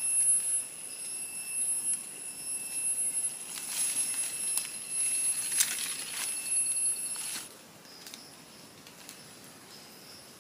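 Steady high-pitched drone of forest insects, stopping abruptly about seven seconds in, over crackling rustles of dry leaves and twigs on the forest floor during mushroom picking.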